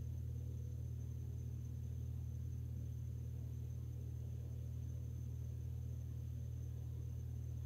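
Steady low hum, unchanging, with no other sound over it.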